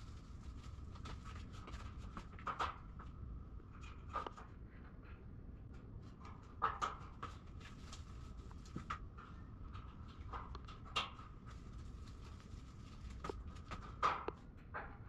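Scattered light clicks and knocks of steel shelving parts being handled and fitted together, over a faint steady high-pitched hum.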